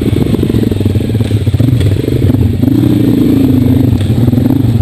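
Trail dirt bike engine running close to the microphone on a muddy track. Its revs pick up about halfway through and hold there before easing near the end.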